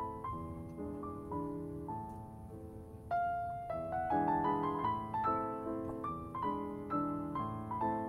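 Background piano music: a gentle melody of single notes over chords, growing fuller about three seconds in.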